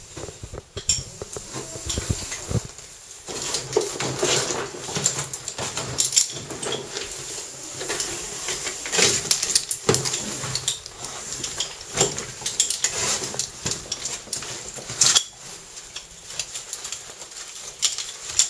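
Metal caving hardware on a harness, carabiners and rope gear, clinking and rattling in irregular clatters as a caver moves on the rope, with rustling of gear and suit between the clinks.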